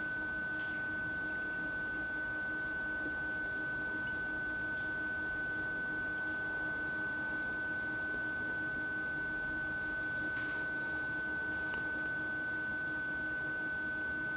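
A steady high-pitched whine with a fainter low hum beneath it, unchanging throughout, and a faint tap about ten seconds in.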